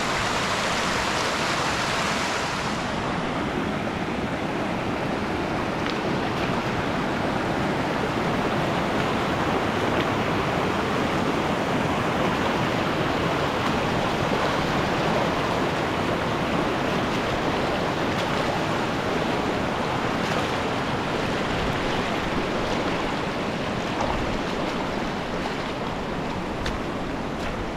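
Steady rushing of a mountain stream's water, an even hiss with no let-up.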